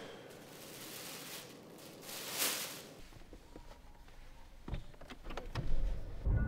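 A plastic shopping bag rustling as it is handled, then, after a cut, several clicks inside a car and its push-button-started engine starting up near the end.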